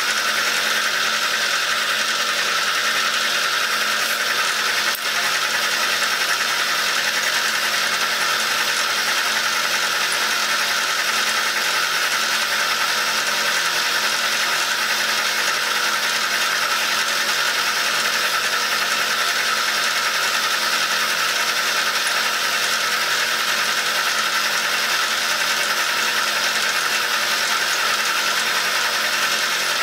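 Milling machine running with an end mill taking a steady cut in bronze, a continuous even cutting noise.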